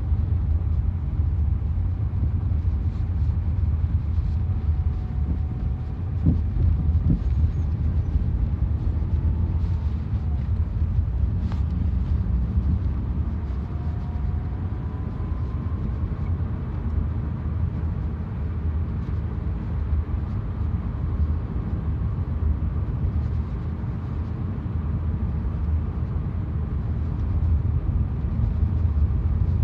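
Lada Vesta on the move: steady low road and running rumble with a couple of sharp knocks about six and seven seconds in, the front-end knock that the owner puts down to worn strut mounts.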